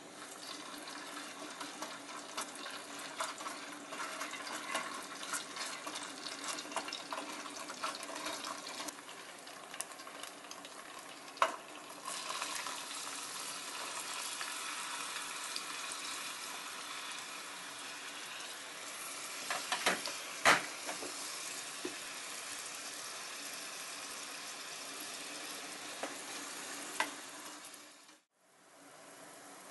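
Grated garlic sizzling in oil in an aluminium mess tin as it is stirred with a wooden spatula. About twelve seconds in, diced onion is tipped in and the frying gets louder, with a steady sizzle and crackle and a few sharp knocks. The sound fades out near the end.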